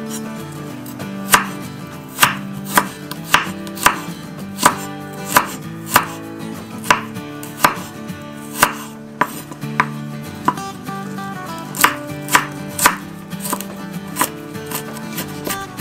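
Kitchen knife chopping food on a cutting board: sharp single cuts at an uneven pace of about one to two a second.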